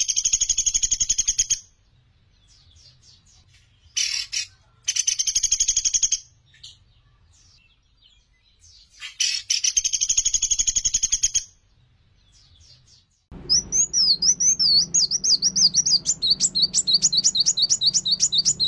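A caged pelatuk beras calls in three bursts of rapid, harsh chattering trills of one to two seconds each, with pauses between. From about two-thirds of the way through, a different bird's song takes over: quick rising-and-falling whistles, then fast repeated notes over a low hum.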